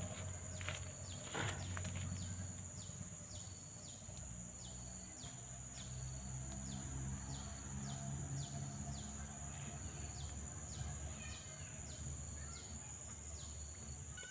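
Insects calling: a steady high-pitched drone with a short chirp repeated about twice a second over it, and a low hum underneath. A few light clicks come in the first two seconds.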